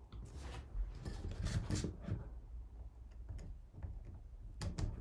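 Handling noise from a drone and its USB cable being plugged in: rustling in the first two seconds, then a few sharp clicks and knocks.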